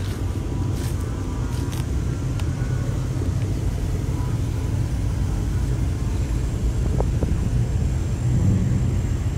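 Steady low rumble of car engines running, with a few faint clicks in the first couple of seconds.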